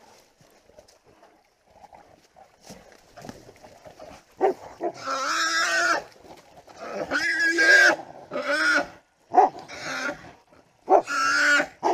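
Wild hog squealing while it is held by catch dogs: five loud, long squeals, the first starting about four seconds in.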